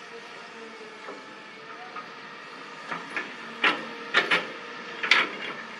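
Caterpillar 320E tracked excavator's diesel engine running steadily as it works, with several loud, short sharp noises from the machine about three to five seconds in.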